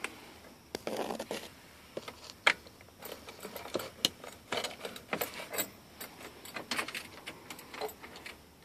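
Irregular light clicks and rustling from handling inside a truck cab with the engine off, with one sharp click about two and a half seconds in as the loudest sound.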